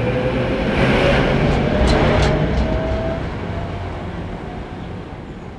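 Tram passing: a steady rumble with a thin motor whine slowly rising in pitch, a few sharp clicks a couple of seconds in, then fading away.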